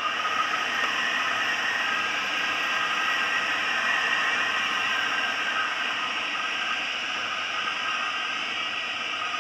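Steady rush of airflow over a Schleicher ASK 23b glider's canopy, heard from inside the cockpit while it banks through a turn, with faint thin whistling tones running through the noise.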